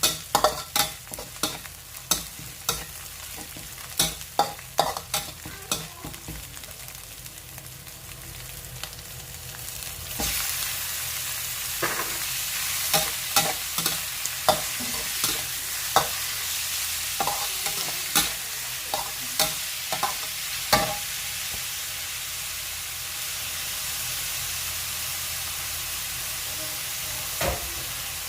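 Seafood stir-frying with holy basil: a spatula strikes and scrapes the metal pan in quick, ringing clanks, over sizzling. About ten seconds in the sizzling jumps suddenly louder and carries on steadily, with occasional spatula clanks.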